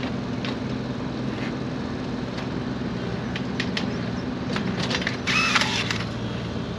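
Steel rebar being handled and tied in a footing trench: scattered light metal clicks and taps over the steady hum of an engine running nearby. About five seconds in comes a brief scraping squeal.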